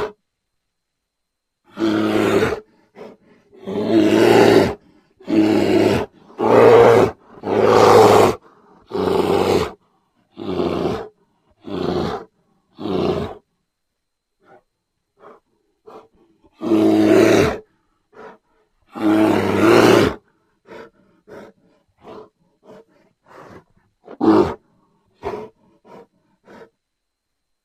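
A string of grizzly bear roar sound effects: about a dozen separate roars, each half a second to a second long, cut apart by dead silence, followed by a run of shorter, fainter grunts and one sharp loud roar near the end.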